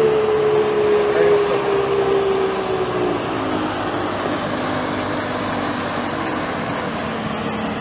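Motorboat engine running at speed as the boat heads across the water, a steady drone whose pitch drops about three seconds in.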